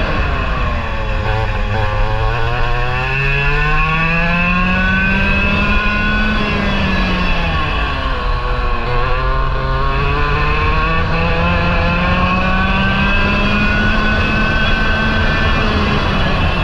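Parilla SS20 two-stroke kart engine at racing speed, heard from onboard: the revs fall off near the start, climb steadily for several seconds, drop sharply about halfway through as the kart lifts for a corner, then climb again and hold high near the end.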